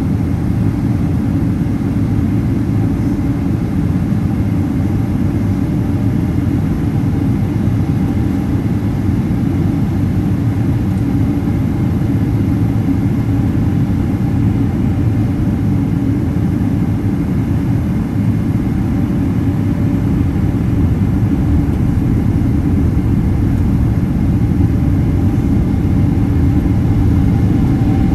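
Steady jet cabin noise beside the Boeing 777-200ER's Rolls-Royce Trent 892 engine on approach: a deep rumble of engine and airflow with a faint steady tone on top, growing slightly louder near the end.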